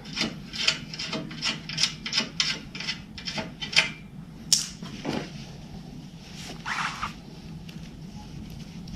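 Metal scraping and rubbing as the silencer insert is worked out of a Hyosung GV250's exhaust pipe: quick strokes about two a second, then a sharp knock about halfway through and one softer scrape later.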